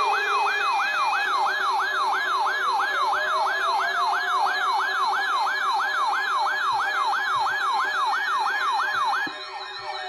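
RadioShack Public Alert weather radio sounding its alert siren for a Required Weekly Test: a loud falling sweep repeated about three times a second over a steady lower tone, cutting off shortly before the end.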